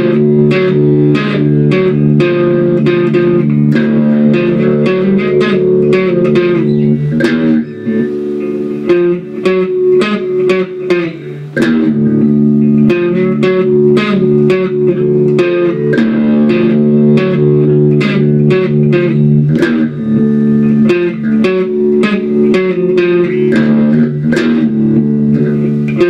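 Guitar playing a repeating pattern of struck chords. It drops to a quieter, sparser passage about a third of the way through, then picks back up.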